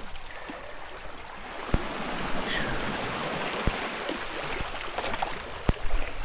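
Small sea waves washing and gurgling over a rocky ledge, the wash swelling about two seconds in, with a few sharp knocks scattered through.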